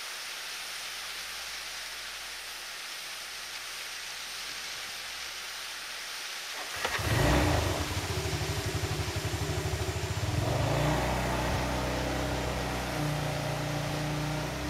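Steady hiss, then about seven seconds in a motor vehicle's engine comes up loud with a rapid low throb and keeps running.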